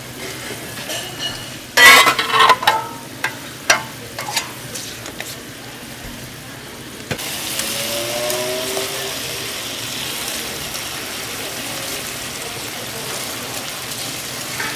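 A metal spatula clanks and scrapes against a steel flat-top griddle in a quick run of sharp strikes. About seven seconds in, a steady sizzle takes over as tteokgalbi minced-meat patties fry on the hot griddle.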